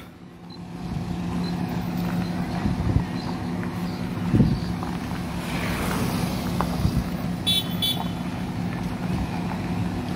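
Vehicles driving slowly in convoy on a dirt road: a steady low engine hum with road and wind noise and a few light knocks. A short high chirp comes about three quarters of the way through.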